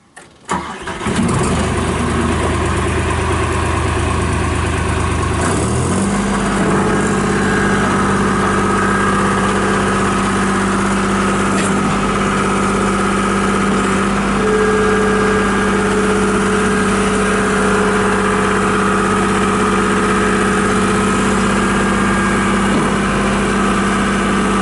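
John Deere 240 Series II skid steer loader's diesel engine starting after a brief crank, then running at low idle. About five seconds later it is throttled up to a higher, steady engine speed, with a steady whine over the engine note.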